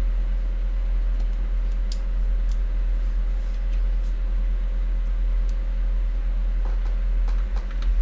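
Faint, scattered clicks and ticks of a small precision screwdriver and screws as the graphics card cooler's GPU screws are driven in, with a cluster of ticks near the end, over a steady low hum.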